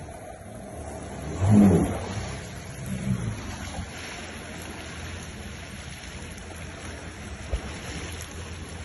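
Jet ski engines running at low speed over choppy water, with wind buffeting the microphone. A louder pitched swell comes about a second and a half in, with a smaller one a second later.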